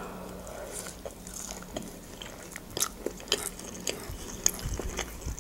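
Close-miked chewing of a mouthful of fried cutlet and mashed potato: soft wet mouth clicks and smacks scattered throughout, with a dull low thump near the end.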